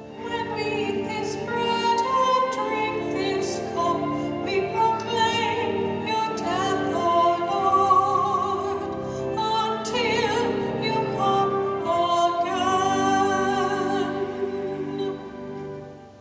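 A solo singer sings with strong vibrato over organ accompaniment holding sustained notes; the music fades out near the end.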